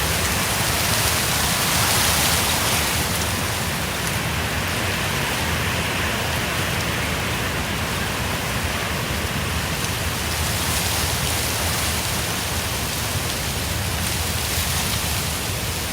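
Wind rustling steadily, with wind rumbling on the microphone; the hiss eases a few seconds in and picks up again after about ten seconds.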